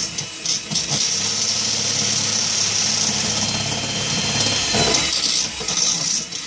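Electric hand mixer running steadily with a constant hum, its beaters churning a crumbly, nearly dry bath bomb mix, then stopping near the end.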